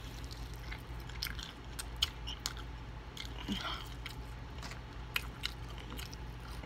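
Close-up chewing and biting of crispy fried chicken: scattered short crunches and crackles of the breading, with wet mouth sounds. A steady low hum sits underneath.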